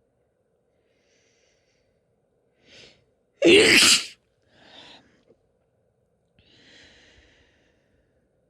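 A woman sneezing once, loudly, about three and a half seconds in, after a short sharp intake of breath; softer breaths out follow it.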